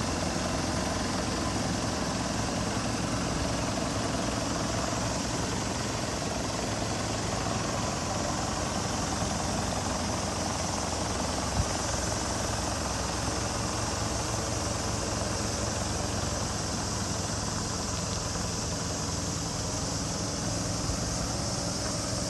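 Nissan Civilian minibus's diesel engine idling steadily.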